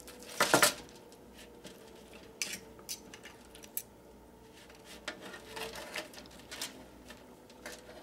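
Knife and fork scraping and clicking against a foil-lined metal baking pan while carving a baked bone-in chicken breast. A brief louder clatter about half a second in, then light, scattered scrapes and clicks.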